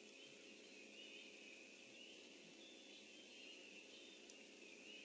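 Faint wetland ambience: a steady, high-pitched chorus of calls that swells and fades in waves, over a low steady hum.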